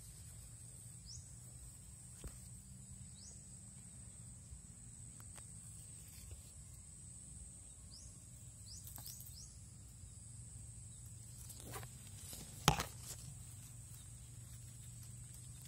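Faint outdoor field ambience: a steady high-pitched insect drone over a low rumble, with a few short chirps and scattered clicks. The loudest click comes about three-quarters of the way through.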